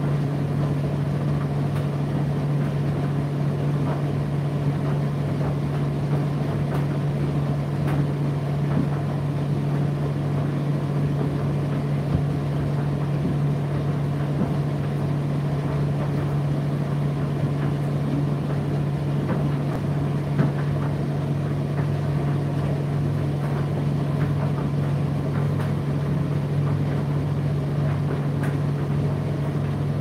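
Indesit IDC8T3 condenser tumble dryer running steadily: a constant low motor hum over the rumble of the turning drum, with a few light taps now and then.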